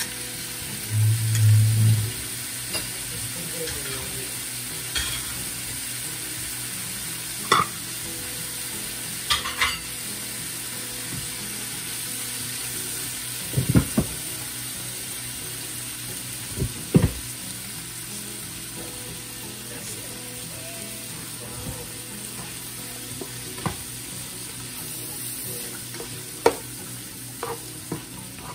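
Sliced ribeye steak, mushrooms, onions and butter sizzling steadily in a nonstick pot, with a plastic spatula knocking and scraping against the pan now and then as the food is stirred. A brief low thud sounds about a second in.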